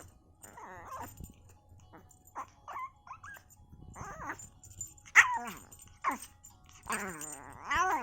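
A dog whining and whimpering in a run of pitched calls, some short and some drawn out. The loudest, about five seconds in, falls in pitch, and a longer one comes near the end.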